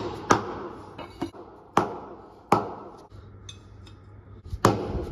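Sharp metallic knocks and clinks with a short ring, about four loud ones spaced a second or so apart, as metal wheel-hub and brake parts are handled and knocked back into place.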